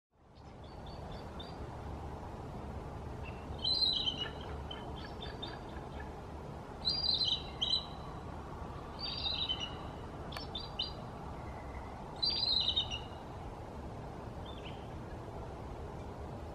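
Adult bald eagle calling: high, rapid chattering notes in short bouts every two to three seconds, over a steady low background noise.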